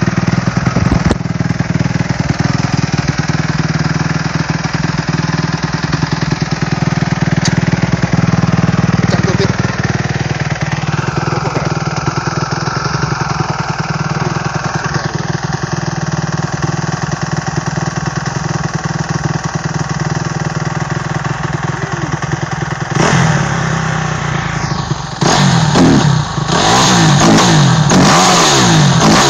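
2008 Kawasaki KX250F's single-cylinder four-stroke engine, freshly overhauled, running at a steady idle, then revved in quick repeated throttle blips over the last few seconds.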